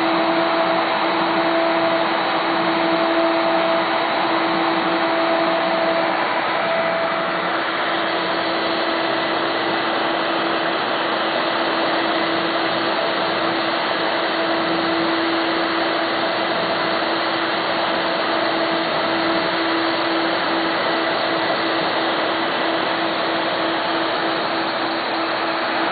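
Home-built CNC machine running at a feed of 90 inches per minute: a steady motor whine with a droning tone over a constant hiss, the tone turning slightly pulsing near the end.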